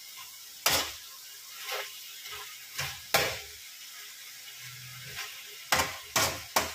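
Metal spatula scraping and knocking against a wok as chicken pieces are stirred and turned, over a faint sizzle of frying. About seven strokes, three in quick succession near the end.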